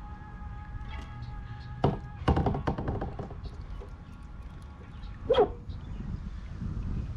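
A sharp knock about two seconds in, followed by a quick run of knocks. A little past five seconds comes a single short bark-like call.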